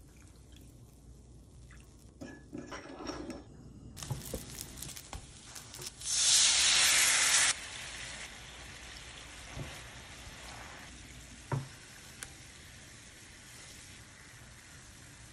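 Mixing and scraping in a bowl at first, then small round cakes frying in oil in a pan. About six seconds in there is a loud burst of sizzling lasting about a second and a half, followed by a steady quieter sizzle with a few clicks of a spatula.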